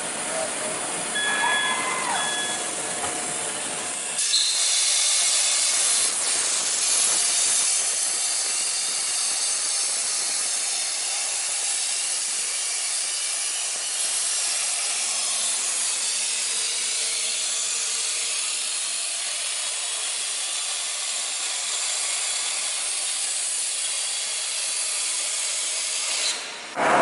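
Hypertherm HPR400XD plasma torch cutting steel plate: a steady, loud hiss of the plasma arc, louder and brighter from about four seconds in.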